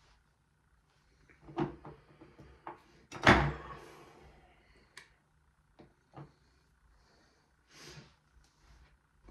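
Knocks and clicks of makeup brushes and products being handled and set down, with one louder clunk about three seconds in and a few light clicks after it.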